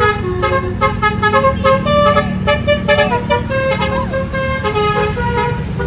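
Telolet basuri bus horn playing a quick tune of short tones that change pitch every fraction of a second, over a steady low rumble.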